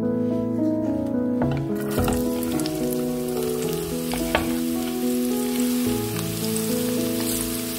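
Vegetables sizzling and crackling in hot oil in a nonstick pan, starting about two seconds in, as grated carrot is tipped in onto diced onion and peppers; a sharp knock about halfway through. A gentle piano tune plays over it.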